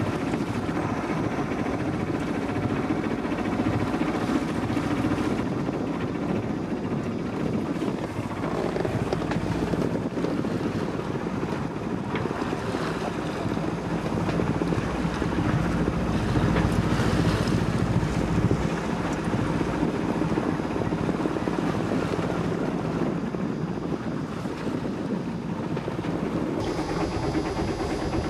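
A sailing yacht under engine: its motor runs steadily beneath wind buffeting the microphone and water rushing along the hull. The sound changes near the end.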